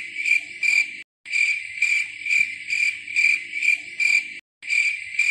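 Cricket chirping, a steady pulsing trill about twice a second that cuts out abruptly for a moment twice.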